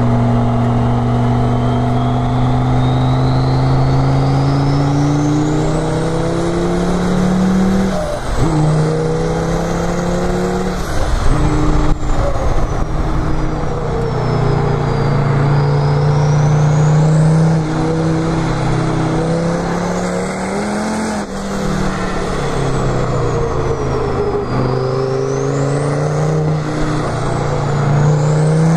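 Mercedes OM605 inline-five turbo-diesel with compound turbochargers, in a Toyota Corolla KE70, heard from inside the cabin under hard driving: the engine note climbs and then drops sharply several times. A high turbo whistle rises and falls along with it.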